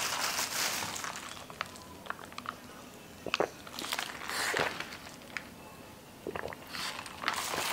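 Mouth sounds of someone sipping and swallowing iced Thai tea, with scattered light clicks and a few short rustling bursts.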